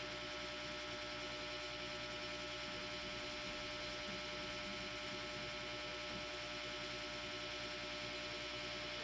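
Steady electrical hum with a faint even hiss.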